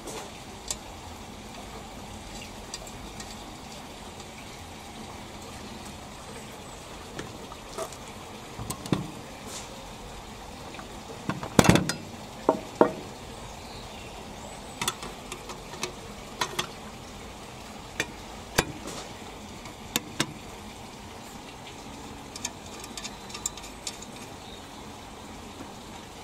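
Scattered light clicks and knocks of small metal and plastic parts being handled as the canopy and its brass screws are fitted to a Mamod model steam traction engine, with a louder cluster of knocks about halfway through. A steady hiss runs underneath.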